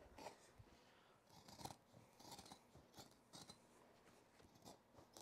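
Carpet shears cutting through a herringbone carpet runner along a marked line: a series of faint, irregular crunching snips.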